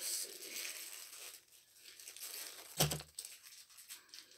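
Small clear plastic bag crinkling as it is worked open by hand, with one sharp knock about three seconds in.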